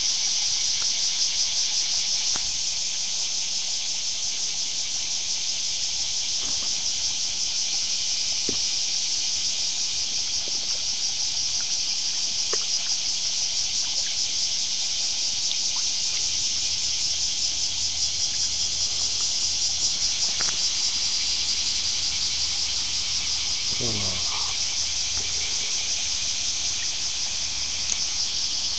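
Steady, high-pitched drone of an insect chorus from the riverside trees, with a few faint ticks and one short rising squeal late on.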